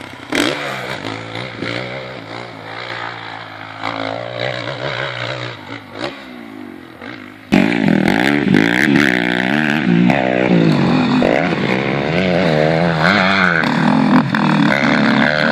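Motocross dirt bike engines revving up and down, the pitch rising and falling again and again as they ride the track. About halfway through it turns suddenly much louder, a close bike revving hard through the turns.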